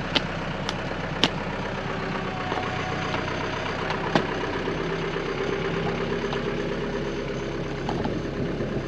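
Arbos 3055 tractor's diesel engine running steadily while it pulls a disc harrow through wet soil. A few light clicks come in the first second and a half and again at about four seconds.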